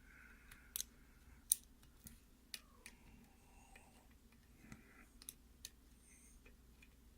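Faint, irregular small metallic clicks of a Peterson Gem hook pick working the pin stack inside a Russwin mortise lock cylinder, a dozen or so scattered ticks over several seconds.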